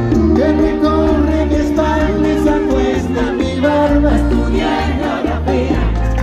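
Live bachata band playing with singing over a steady bass line, heard from within the audience.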